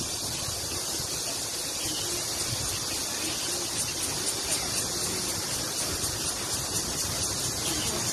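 Steady outdoor background noise, an even high hiss, with faint voices of a group of people eating at picnic tables.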